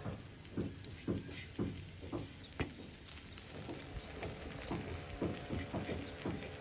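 Butter sizzling under slices of bread toasting on a hot nonstick tawa, with a string of soft irregular pops, about two a second.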